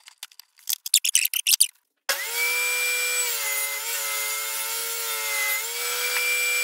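A few quick clicks and knocks of handling, then an ordinary handheld circular saw mounted under a homemade saw table starts abruptly about two seconds in and runs steadily with a high whine. Its pitch drops slightly for about two seconds midway as the blade takes the first rabbet cut through the board.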